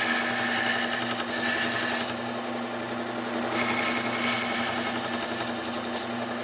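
Bucktool low-speed belt sander running steadily while a hunting knife blade is ground on its Cubitron 120 belt to establish the edge and raise a burr. The hissing grind of steel on the belt eases about two seconds in and returns about a second and a half later, over the sander's steady motor hum.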